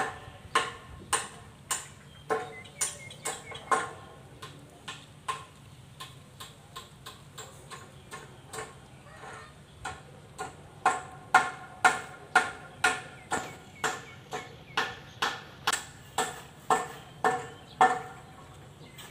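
A series of sharp knocks, irregular at first and then about two a second, each with a brief ring, over a faint low steady hum.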